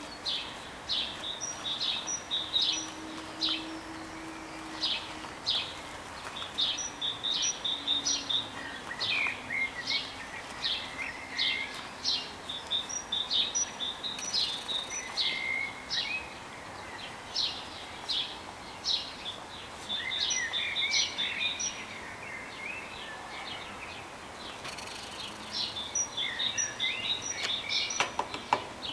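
Songbirds chirping and singing outdoors: rapid, repeated short high chirps, with a few lower warbling phrases, over a steady background hiss.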